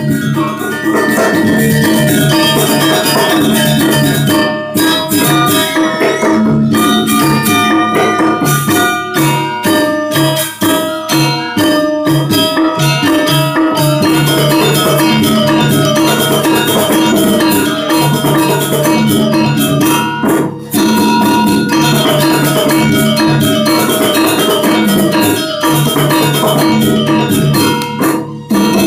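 Balinese gamelan ensemble playing fast dance music: bronze metallophones ring in rapid strokes over drum and gongs. The music breaks off sharply for an instant several times.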